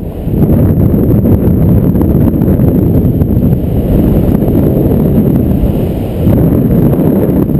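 Wind from the airspeed of a hang glider in flight buffeting a helmet-mounted camera's microphone: a loud, steady, rough low rumble.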